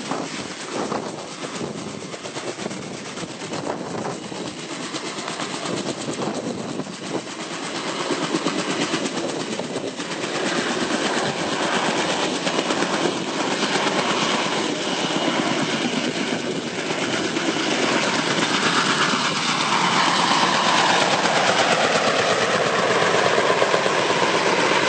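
Kaman K-MAX intermeshing-rotor helicopter flying, its rotor and engine noise steady and growing louder.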